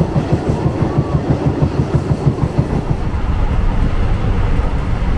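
Third-class passenger train running on the line, a loud low rumble with a quick rhythmic pulsing that evens out into a steadier rumble about three seconds in.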